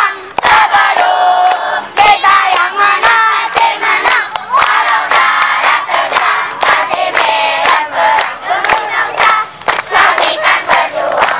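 A crowd of children chanting and singing together in shouts, with many sharp claps throughout.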